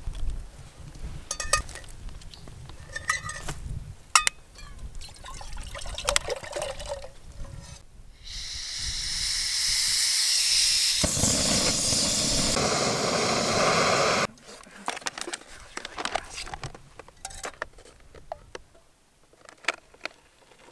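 Backpacking canister stove: light clinks as the stove and pot are handled, then a loud, steady hiss of gas from the burner about eight seconds in. The hiss deepens about three seconds later as the flame catches under the pot, and it cuts off suddenly some three seconds after that.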